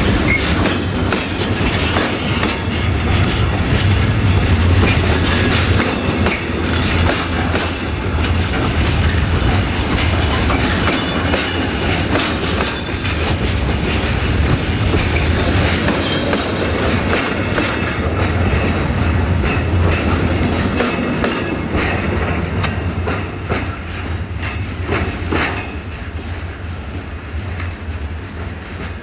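Covered freight wagons rolling past close by, their wheels clacking steadily over the rail joints over a continuous rumble. The noise grows quieter over the last few seconds as the final wagon passes and pulls away.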